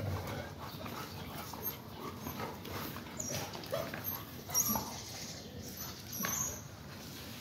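Rottweiler puppies at play with a golden retriever: a few short, high whines and yips, about three seconds, four and a half seconds and six seconds in, over a low steady background.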